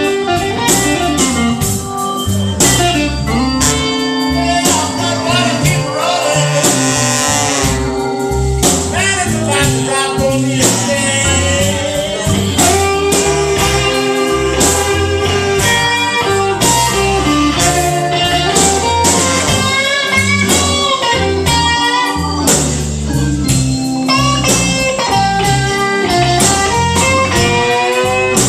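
Live blues band playing a slow blues: an electric guitar plays a lead line of held, bent notes over bass and drums.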